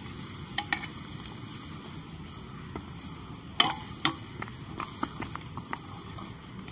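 Water and noodles bubbling in an aluminium pan over a wood fire, with scattered light crackles. A little over three and a half seconds in there is a sharp metal clink, with a short ring, as the metal plate used as a lid knocks against the pan.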